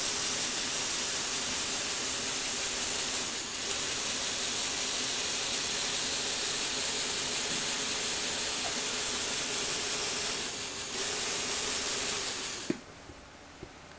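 Small electric motors and plastic gear mechanisms under model cars whirring steadily, with a high hiss-like gear noise. The whir dips briefly twice and cuts off with a click near the end.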